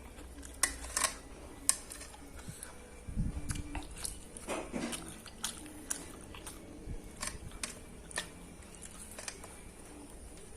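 Close-up eating sounds: a person chewing a mouthful of fried instant noodles, with scattered sharp clicks and a dull low thump about three seconds in.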